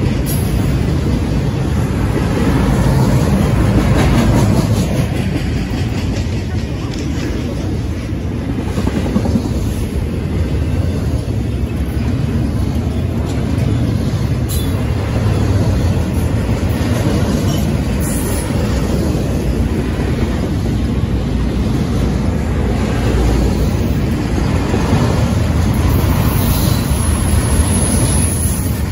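Double-stack intermodal freight train rolling past: a steady rumble of steel wheels on rail, with a few faint clicks.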